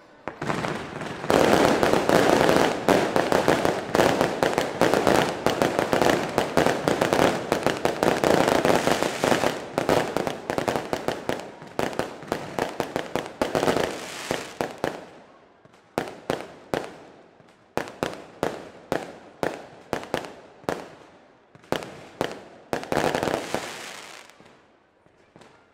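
Aerial fireworks display: a dense, rapid barrage of bangs and crackling for the first half, then separate sharp bangs about one or two a second, with a short dense flurry near the end.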